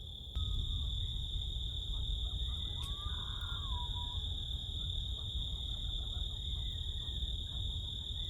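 Crickets trilling steadily at night in one unbroken high note, over a low rumble that gets louder about half a second in.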